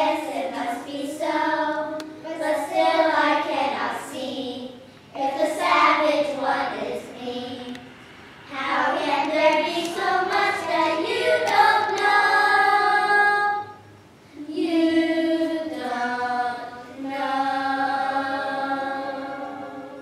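Singing in phrases with short breaks between them, including a long held note about twelve seconds in.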